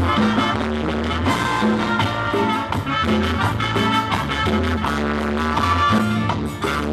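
Live band playing Latin dance music, with drum kit and keyboards.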